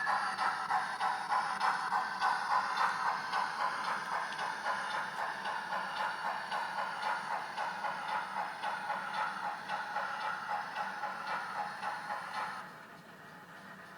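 Digital steam-locomotive sound from a Loksound decoder's GWR Collett goods engine sound file: a steady rhythm of exhaust chuffs, about two to three a second, gradually fading. The chuffs stop abruptly near the end, leaving a faint hiss.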